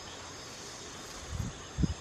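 A hand digging and scraping in soil and dry grass, with two dull low thumps late on. Insects chirr steadily at a high pitch underneath.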